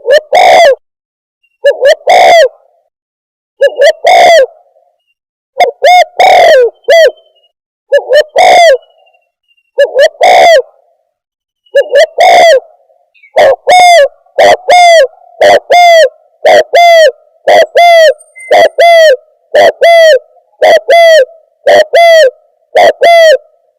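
Spotted dove (tekukur) cooing, a recorded lure call: loud short coos in groups about every two seconds, then from about halfway an even run of single coos, roughly one and a half a second.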